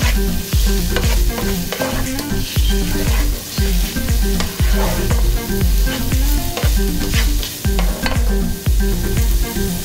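Diced onions sizzling as they sauté in a nonstick pot, stirred with a plastic slotted spatula that scrapes and taps the pan bottom in repeated strokes. Background music with a steady beat plays under it.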